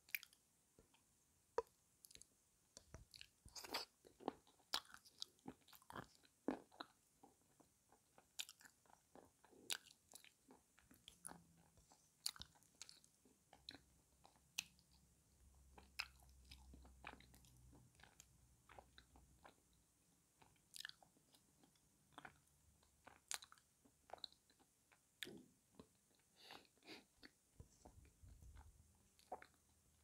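Close-up chewing and crunching of soaked blue clay, with irregular sharp crunches and clicks several times a second.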